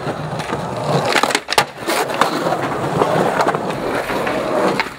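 Skateboard wheels rolling on concrete pavement in a steady rumble, with several sharp clacks of the board striking the ground, a few about a second and a half to two seconds in and more near the end.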